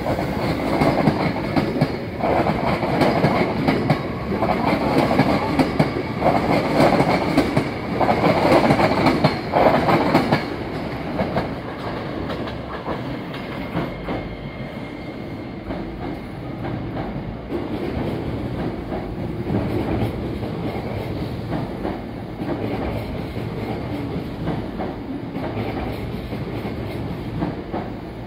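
Hankyu 1300 series electric train pulling out of the station, its wheels clacking loudly over the rail joints, with a steady high whine, for about the first ten seconds. It then fades to a quieter steady rumble as a Hankyu 9300 series train runs slowly into the platform.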